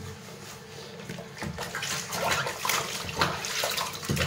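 Water splashing and sloshing in a plastic basin as a corgi puppy is washed by hand, irregular and growing louder after about a second and a half.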